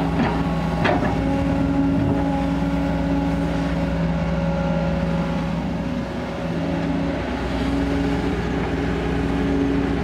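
Diesel engine of a Kobelco SK200 crawler excavator running steadily under work, with a couple of sharp knocks in the first second and a brief dip in engine note a little past the middle.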